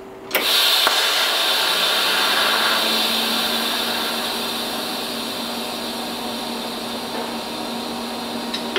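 TIG welder arc hissing steadily while tack-welding a stainless steel pot sling. It starts abruptly just after the start, a steady hum joins it about two seconds in, and it stops with a click near the end.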